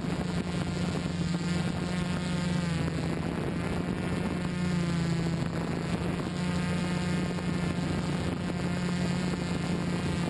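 Multirotor drone's electric motors and propellers humming in flight, recorded from on board, with the pitch drifting slightly as the motors adjust.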